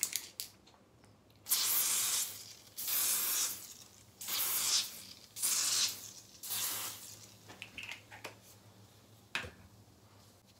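Aerosol can of Kate Somerville DermalQuench Liquid Lift hissing out foam in five short spurts, each about half a second to a second long, followed by fainter spurts and a click near the end.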